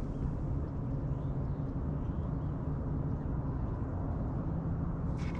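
Steady low rumble of wind on the microphone in a small fishing boat, with a faint low hum under it and a few short clicks right at the end.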